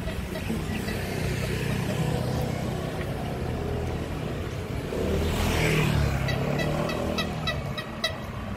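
Street traffic: vehicle engines running, with one vehicle passing close and loud about five seconds in. Near the end comes a run of short high chirps, about three a second.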